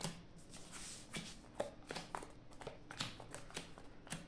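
Playing cards being drawn from a deck and laid down on a table mat: a string of light, irregular card clicks and slaps.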